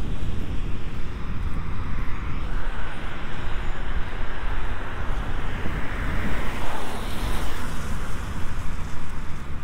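A car passing on a wet road, its tyres hissing louder as it approaches, peaking about six to seven seconds in, then fading. Under it runs a steady low rumble of wind on the microphone.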